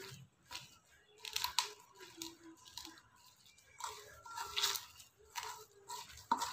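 A hand kneading and squeezing a moist mix of grated coconut and shrimp in a steel bowl: soft crunching, squishing strokes about once a second.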